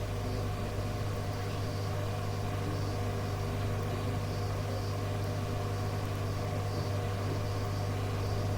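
Steady low hum with background hiss from a radio receiver recording between transmissions.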